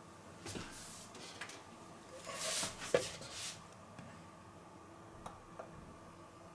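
Faint kitchen handling noises: soft rustles and a light knock about three seconds in as a plastic measuring jug is moved and set down on a stainless-steel kitchen scale, then a smaller click a couple of seconds later.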